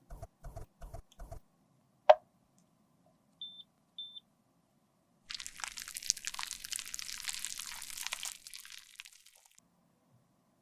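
A few soft taps, then a single sharp click about two seconds in. Two short electronic beeps follow, then about four seconds of crackling, rustling handling noise that fades away.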